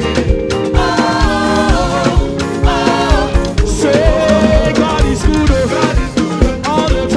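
Live gospel band music with a steady drum-kit beat under held chords, and a singing voice carrying a gliding melody over it.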